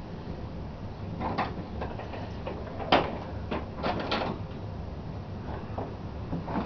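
A few short, scattered knocks and clunks, like something being handled, over a steady low hum.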